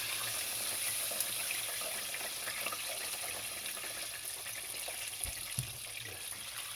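Chicken pieces deep-frying in a pot of hot oil: a steady sizzle with small crackles, and a brief low knock about five seconds in.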